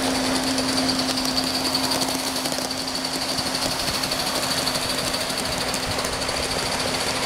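Gauge 1 live-steam model of a BR 41 steam locomotive running along its metal track: a steady mechanical running and rattling sound with a constant low hum and a high whine.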